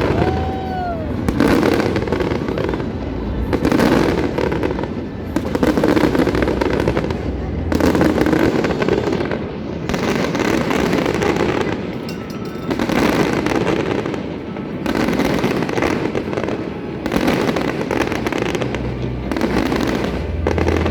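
Aerial fireworks going off in a rapid barrage, a bang about every two seconds with a continuous crackle and rumble between the bursts.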